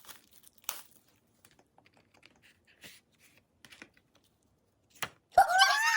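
Faint scattered clicks and light crinkles of small plastic candy packaging being handled and torn open, then about five seconds in a loud, high-pitched excited voice cries out.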